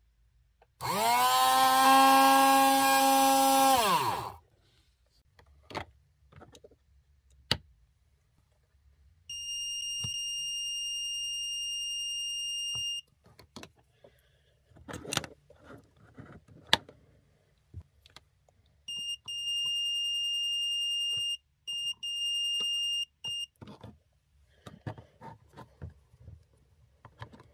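A small 12 V brushed DC motor from an oil pump is test-run on the bench: it spins up about a second in, runs with a steady whine for about three seconds and winds down. Later a UNI-T UT890D digital multimeter's continuity buzzer sounds three times, one long steady beep and then two shorter ones, as its probes find a closed circuit in the pump's wiring, with clicks of the probes in between.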